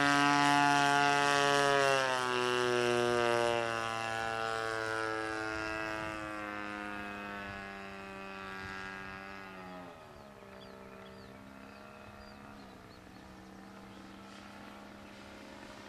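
JC Evo 28cc single-cylinder two-stroke gasoline engine turning the propeller of an RC model plane in flight. It runs with a steady buzzing note that drops in pitch about two seconds in, slides lower, and drops again about ten seconds in, while the sound fades as the plane flies off.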